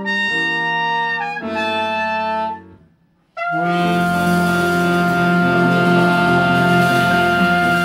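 Swing band with trumpet and saxophone on top of piano, guitar, double bass and drums, playing a run of short held chords. The band cuts off for about half a second near the middle, then comes back in on one long held chord.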